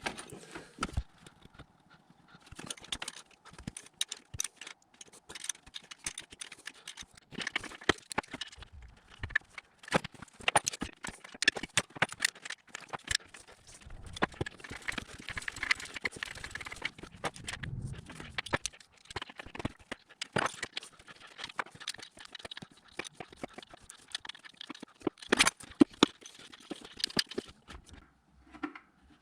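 Spanners working the exhaust manifold nuts loose on a Suzuki Alto engine: many irregular metallic clicks and clinks, in short runs with brief pauses.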